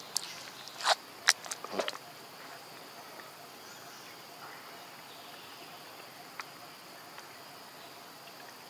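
Steady high-pitched insect drone in the background, with a few sharp clicks and crackles in the first two seconds.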